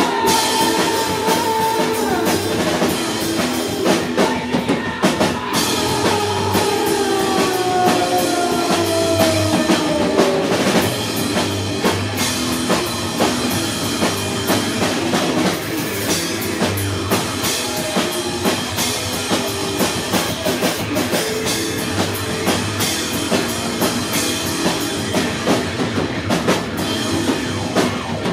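Live rock band playing an instrumental passage: distorted electric guitar over a full drum kit. Between about six and eleven seconds in, a held note slides slowly down in pitch.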